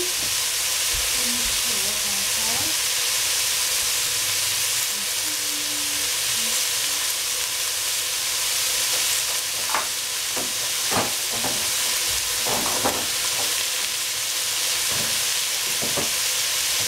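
Cauliflower, celery and shiitake sizzling steadily in oil in a stainless steel pot, with a few short crackles in the second half. The pan has run too dry and is short of liquid.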